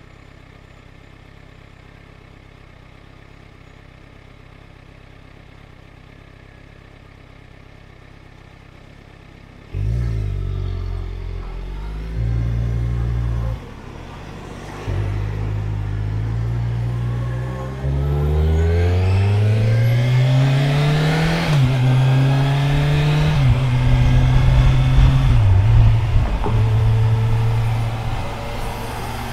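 Motorcycle engine idling steadily for about ten seconds, then pulling away. Its note climbs under throttle and drops back several times as it shifts up through the gears, getting louder as it goes.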